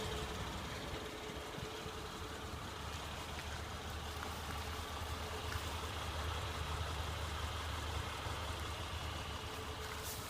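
2007 Acura RL's J35A8 V6 engine running steadily with a ticking noise, which the owner is unsure is normal for this engine.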